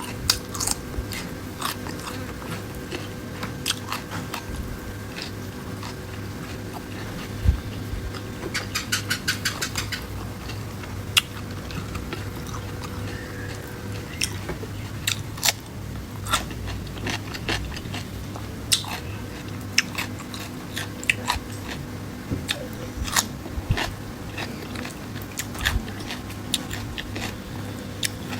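Close-miked eating: chewing and biting, with scattered crisp clicks and crunches and a quick run of clicks about nine seconds in, over a steady low hum.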